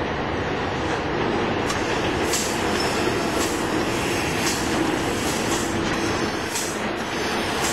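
Electric locomotive hauling a freight train of open wagons rolling past close by: a steady rumble and rail noise, with a sharp high-pitched rattle or screech coming back about once a second.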